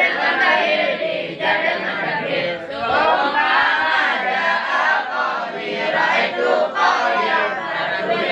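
A group of young men chanting a nadham together, unaccompanied: rhymed verses on Arabic grammar (nahwu and sharaf) recited in Acehnese in a sung, chant-like tone.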